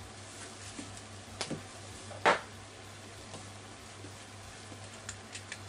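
Pan of stir-fried shirataki and vegetables simmering faintly on a gas stove over a low steady hum, with a few light clicks, the sharpest a little over two seconds in.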